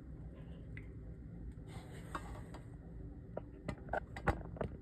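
A steady low rumble with a run of light, sharp clicks and knocks in the second half, the loudest about four seconds in.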